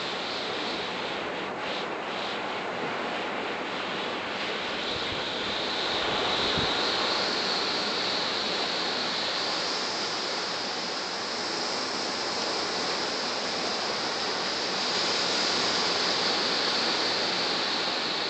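Ocean surf breaking on a beach: a steady rushing wash of waves that swells a little about six seconds in and again near the end.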